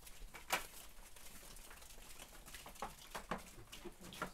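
Footsteps of rubber boots through straw bedding on a barn floor, with scattered light knocks and rustles as a plastic bucket is set down; one knock about half a second in is louder than the rest.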